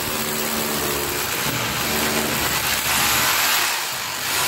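Electric hammer drill running steadily as it bores into brickwork, drilling a pocket through the top course for a Strongboy wall support; it eases off briefly near the end.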